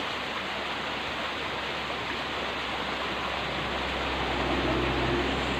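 Steady rushing of a small stream. A faint low hum joins it about three and a half seconds in.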